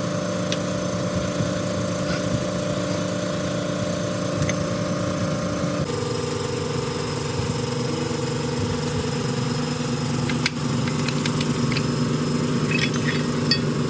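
An engine running steadily, its pitch dropping a step to a lower steady speed about six seconds in, with a few light clicks near the end.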